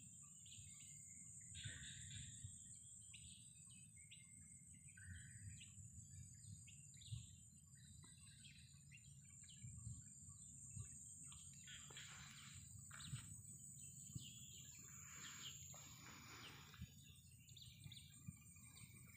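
Faint outdoor ambience: scattered bird chirps over a steady high hum and a low rumble.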